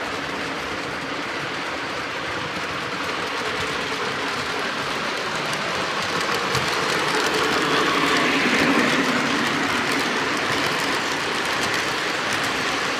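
Lionel O gauge model trains running on parallel tracks, two steam locomotives pulling cars with a steady rumble and clicking of wheels over the rails. It grows louder as the trains pass close, loudest about eight to nine seconds in, then eases.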